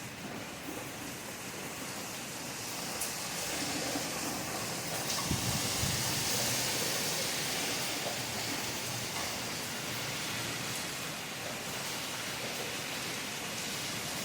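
Steady rain falling, an even hiss that grows a little louder about four seconds in.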